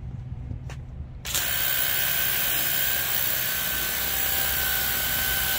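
The battery-powered pump motor of a WORX 20V Hydroshot portable power cleaner switches on about a second in and runs with a steady whine, shooting a narrow 0-degree jet of water.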